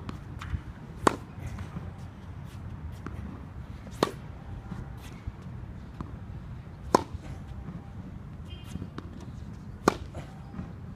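Tennis racket striking the ball on groundstrokes: four sharp hits about three seconds apart, with fainter taps and clicks in between.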